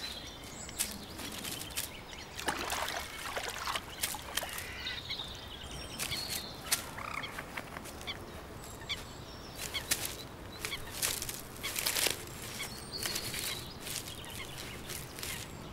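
Pond wildlife ambience: many short, sharp animal calls and clicks at irregular intervals, with a few brief higher-pitched bird calls among them.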